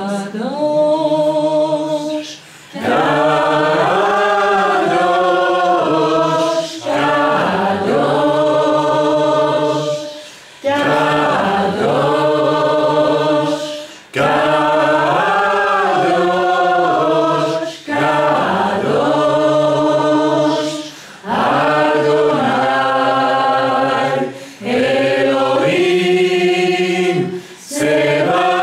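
A group of voices singing together, in phrases of about three to four seconds, each followed by a brief pause.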